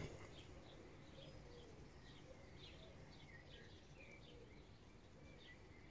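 Near silence, with faint bird chirps repeating about twice a second in the background.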